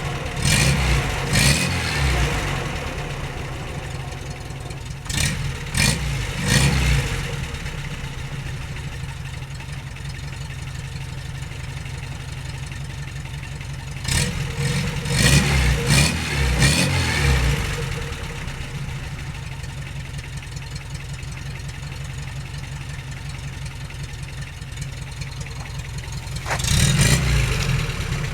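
Skoda 120 L's rear-mounted four-cylinder petrol engine idling steadily. The throttle is blipped in four short clusters of revs: at the start, around 5 to 7 seconds in, a longer run around 14 to 18 seconds, and once more near the end.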